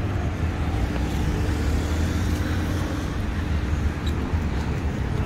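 Steady road traffic noise on a wide city street: a continuous low rumble of cars, with a faint steady hum over the first few seconds.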